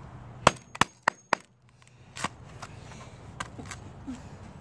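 Claw hammer striking a laptop keyboard deck: four sharp blows in quick succession starting about half a second in, followed by a few fainter clicks.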